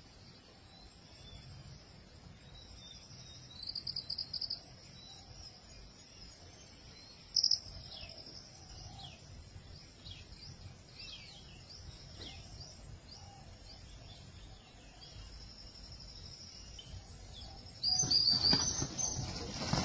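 Insects buzzing steadily, with birds chirping now and then and a brief rapid trill about four seconds in. Near the end a sudden loud burst of noise takes over.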